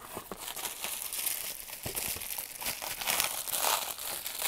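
Pink bubble wrap crinkling and rustling as hands pull it from a cardboard box and unfold it: a continuous patter of small crackles, loudest about three seconds in.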